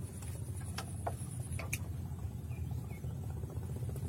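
A steady low rumble with a faint high hiss, broken by a few short clicks in the first two seconds.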